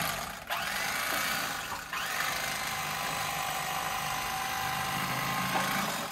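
Electric fillet knife buzzing steadily as it cuts through a walleye, briefly dipping twice in the first two seconds and shifting slightly in tone as the blade works along the fish.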